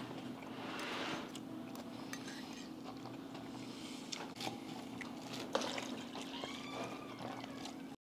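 Eating sounds: a metal fork clinking and scraping on a ceramic plate, with wet mouth and chewing noises over a steady low hum. A few sharp clinks stand out, the loudest about five and a half seconds in, and the sound cuts off suddenly at the end.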